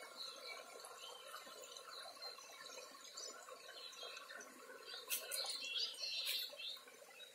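Faint outdoor ambience among trees, with a few brief, high bird chirps about five to six and a half seconds in.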